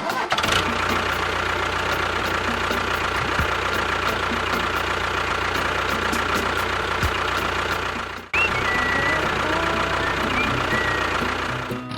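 A small engine or motor running steadily. It cuts out briefly about eight seconds in, then carries on.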